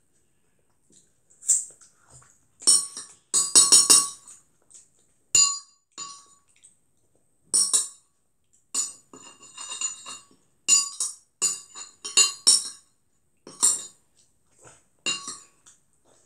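Metal fork scraping and clinking against a plate in about a dozen short, irregular strokes, each with a brief ring, as the remaining sauce-coated noodles are picked up.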